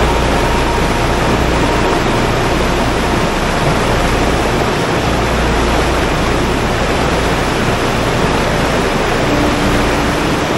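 Whitewater river rapids rushing in a loud, steady roar of water.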